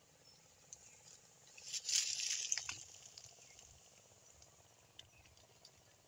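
Faint outdoor background with a brief rustling swell about two seconds in, lasting roughly a second, and a few faint scattered clicks.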